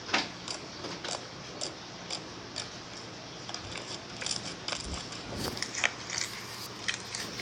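Slime being squeezed and worked by hand, giving irregular small clicks and crackling pops over a faint steady hum.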